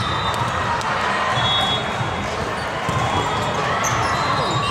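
Gym din during a volleyball match: balls being hit and bouncing on a hard court, mixed with many voices talking and calling, and a few short high squeaks.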